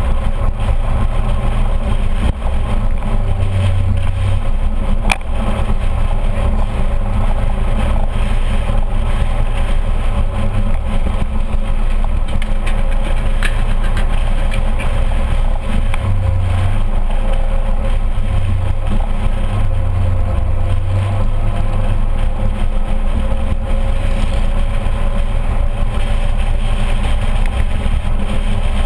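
A scooter's engine running steadily at cruising speed, picked up by a camera mounted on the scooter itself, under a heavy low rumble of wind and road noise.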